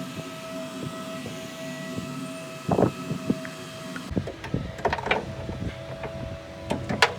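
Scattered knocks and clinks of tools and metal suspension parts being handled during repair work, over a steady background hum. The knocks come more often in the second half, the sharpest near the end.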